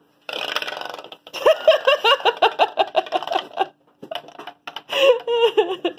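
A child laughing: a breathy burst, then a quick run of high-pitched giggles, about four or five a second.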